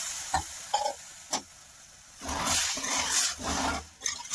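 Metal spatula scraping over the bottom of a metal pan in repeated strokes, stirring sugar granules in water to dissolve them. A few light clicks come first, and the scraping starts about two seconds in.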